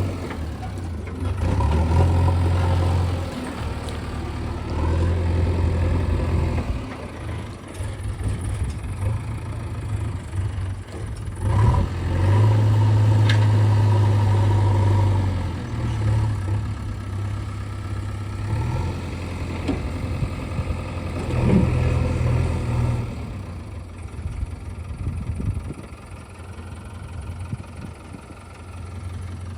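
JCB 3DX backhoe loader's diesel engine running, revving up under load and settling back several times while loading, with a couple of sharp knocks, one about halfway and one about two-thirds through.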